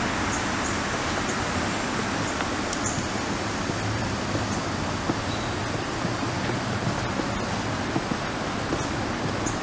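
Steady, even rushing of whitewater river rapids in the gorge below the trail.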